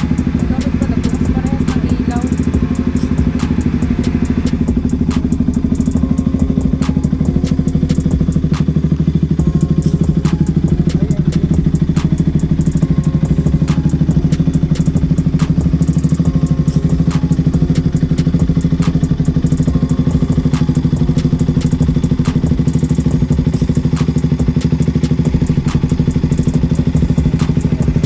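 KTM RC 200's single-cylinder four-stroke engine idling steadily through a Yoshimura R-11 full aftermarket exhaust system, with an even, rapid exhaust pulse.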